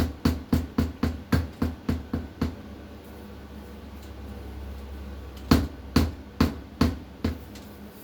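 Drill with a paddle mixer churning drywall mud in a bucket: a steady low motor hum with quick repeated knocks, about four or five a second. The knocks stop for about three seconds in the middle, then return more slowly.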